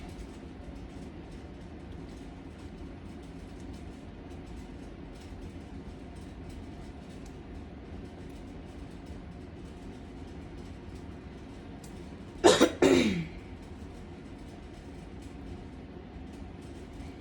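A person coughs twice in quick succession, short and loud, about twelve seconds in, over a steady low room hum with faint small clicks.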